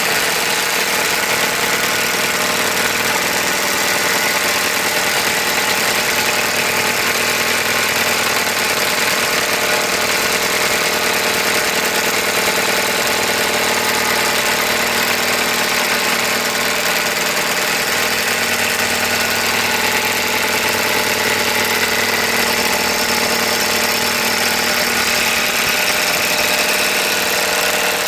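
Impact wrench hammering steadily on a stubborn 24 mm front axle nut, running without a break.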